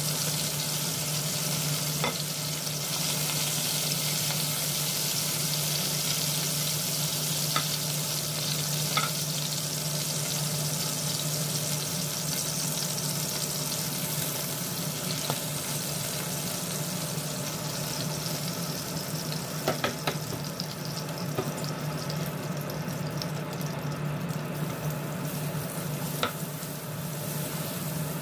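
Chicken thighs, then minced garlic, sizzling in hot oil in a nonstick frying pan, with a slotted spatula clicking against the pan now and then as the pieces are lifted and stirred. The sizzle thins a little in the last few seconds.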